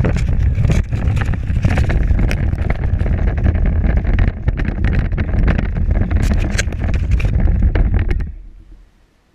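Power Wheels ride-on toy car driving, its motor and gearbox running and its plastic wheels rattling over the ground with many sharp clicks. The noise fades away a little after eight seconds in as the car comes to a stop.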